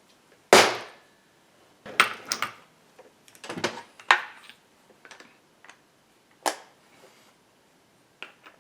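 Impact wrench rattling in several short bursts, tightening a chainsaw clutch onto the crankshaft so it won't spin off at first start-up.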